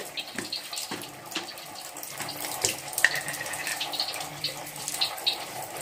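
A glass seasoning jar being handled and tipped, giving scattered light clicks and clinks over a steady background hiss.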